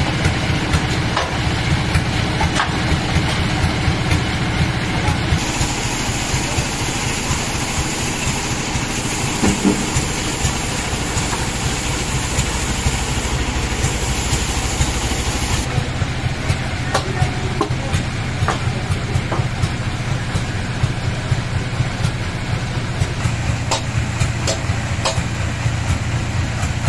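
Band sawmill machinery running with a steady low drone, and scattered short knocks and clatters in the second half.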